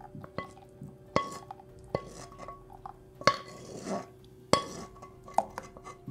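A utensil scraping and knocking inside a pan to get the last of a thick sauce out into a glass container: about five sharp clinks at uneven intervals, each with a brief ringing tone, and a soft scrape between them. A faint steady music tone lies under it.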